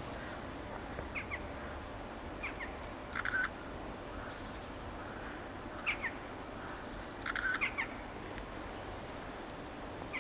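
Birds calling outdoors: short high chirps and small clusters of harsher calls every second or two, over a steady background hum.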